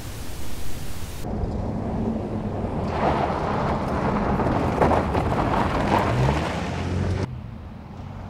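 A steady hiss, then about a second in the engine of a 2024 Toyota Tacoma TRD Pro with the i-FORCE MAX 2.4-litre turbo four-cylinder hybrid powertrain running hard as the truck drives fast over a dirt road, with loud tyre and gravel noise and a brief rise in engine pitch. Near the end the sound drops abruptly to the truck running further off.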